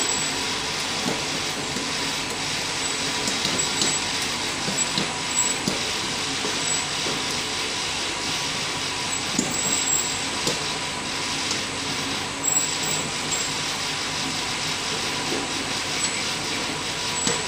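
Conveyor belt dryer running: a steady mechanical whir and hiss with a thin high tone, and a few light ticks.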